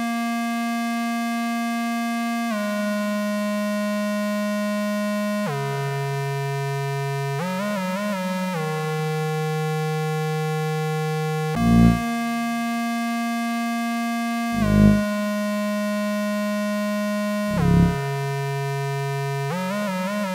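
Korg Volca Bass analogue synthesizer holding long, buzzy bass notes that step to new pitches every few seconds, with a wavering, sliding passage around the middle. Three short low thumps land about three seconds apart in the second half.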